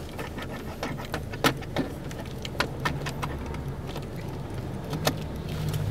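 Inside a moving Honda car: a steady low hum of engine and road noise, with scattered light clicks and rattles.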